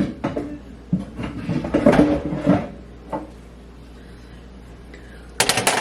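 Kitchen handling sounds of a baking pan and utensils: a sharp knock, a stretch of clattering and rattling, another knock, a quiet pause, then a quick run of clicks near the end.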